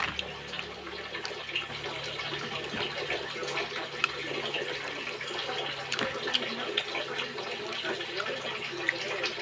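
Cooked crab shells being picked apart and eaten by hand: scattered small clicks and cracks over a steady watery hiss.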